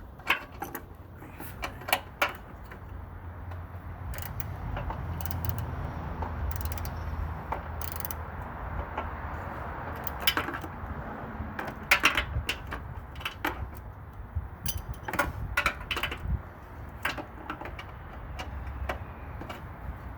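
Scattered metallic clicks and clinks of hand tools, a socket wrench on an extension being worked in a car's engine bay. The clinks come irregularly and bunch together a few times, over a low background rumble.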